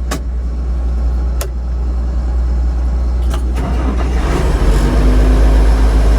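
Heavy farm-vehicle engine running steadily with a deep drone, with a few sharp clicks right at the start. About four and a half seconds in the engine gets louder and a steady hum joins it, as it is brought up to speed or put under load.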